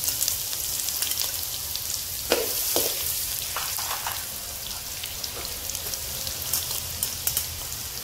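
Chopped ginger and garlic sizzling in hot mustard oil in a kadai, a steady frying hiss. A few sharp ticks come about two to four seconds in and again near the end.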